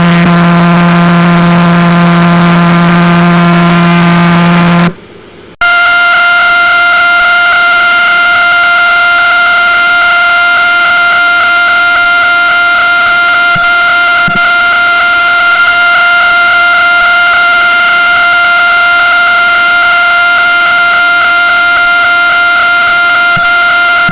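Pulsar radio signals rendered as audio, heard as two steady electronic tones. First comes a low buzzing hum with many overtones, which cuts out about five seconds in. After a brief gap a steady high-pitched whine follows, the signal of a faster-spinning pulsar.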